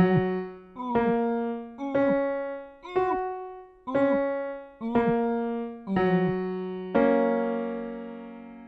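Piano struck eight times, about once a second, each note dying away before the next; the last rings on longest.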